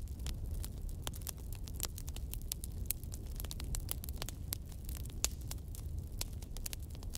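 Wood fire in a fireplace crackling: irregular sharp pops and snaps, several a second, over a low steady rumble of the flames.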